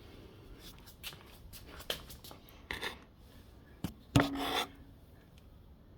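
Handling noise: rubbing and scraping with scattered light knocks. The loudest scrape comes about four seconds in, with a brief squeak in it.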